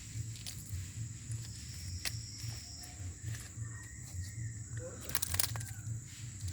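Outdoor ambience: a steady high-pitched insect drone over a low rumble, with a few sharp clicks, the loudest cluster about five seconds in.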